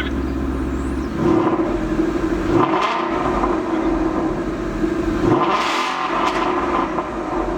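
Loud idle of a Ford Mustang GT's 5.0 V8 through a newly fitted Corsa Xtreme exhaust, then revved twice, each rev climbing and dropping back to idle, about a second in and again about five seconds in.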